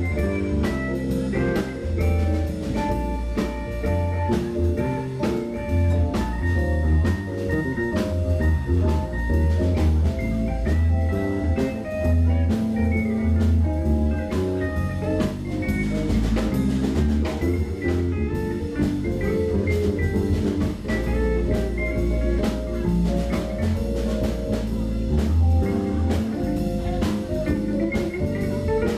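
Jazz-fusion band playing live: electric bass, drum kit with cymbals, electric guitar and keyboard, the bass notes strong and low under busy drumming.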